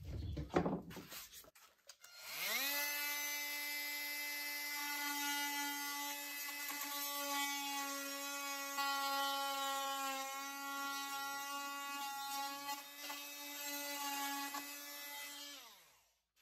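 Electric jigsaw starting up about two seconds in and running at a steady pitch while it cuts a slot through plywood, then winding down near the end.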